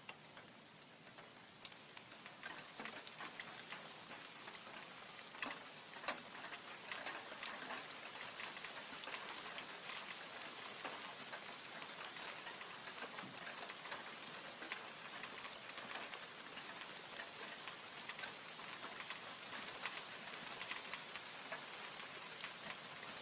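Rain falling steadily, with many individual drops ticking sharply on a nearby surface; it grows heavier over the first few seconds, then holds steady.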